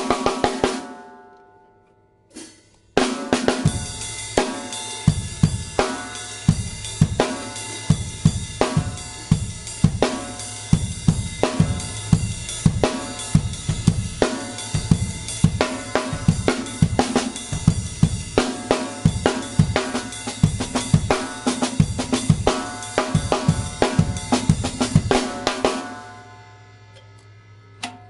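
Drum kit played in a groove with a very high-tuned Ludwig Exotic Bird's Eye Maple 14x6.5 snare over bass drum, hi-hat and cymbals. An earlier hit rings out and dies away at the start, there is a single stroke, and steady playing begins about three seconds in. The playing stops about two seconds before the end and the cymbals ring out.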